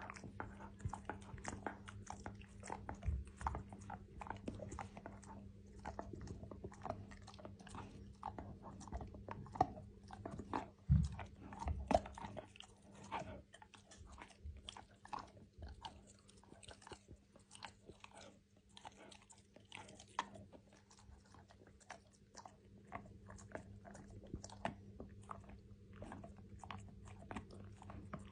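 Akita dog chewing and crunching a hard chew snack, a steady run of short crunching bites.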